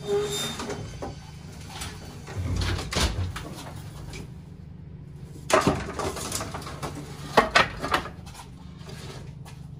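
Knocks, bumps and rattles of gear being shifted and pulled down from an overhead garage storage rack, with a dull thump about two and a half seconds in and a few sharp knocks in the second half, over a low steady hum.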